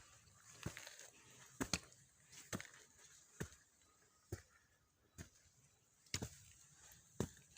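Footsteps of a hiker walking on a mountain trail, one sharp step a little under once a second.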